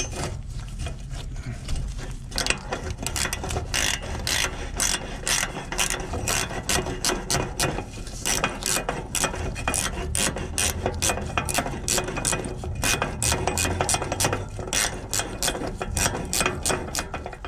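Hand ratchet wrench clicking in a steady run, about three or four clicks a second, starting about two seconds in, as a bolt is worked loose.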